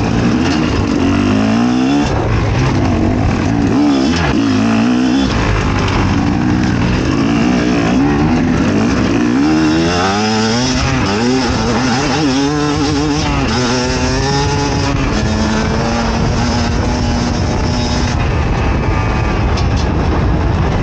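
Fantic XE 300 two-stroke enduro motorcycle engine under hard riding, its pitch repeatedly climbing and dropping as the throttle is opened and closed through the gears, then held steady for a few seconds near the end.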